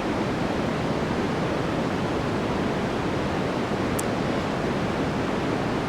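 White noise sample playing as a steady, even hiss, likened to heavy rain.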